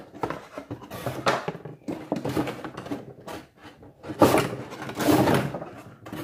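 Cardboard box being handled and cleaned out: a run of irregular scraping and rustling noises, loudest about four and five seconds in.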